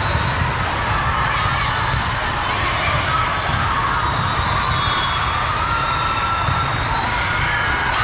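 Volleyball tournament hall din: a steady wash of many voices, with balls being struck and bouncing on hard courts in a large, echoing hall.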